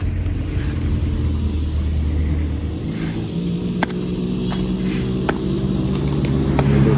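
Road traffic passing: vehicle engines running, a low hum giving way about three seconds in to another engine's louder drone that climbs slightly in pitch, with a few sharp clicks.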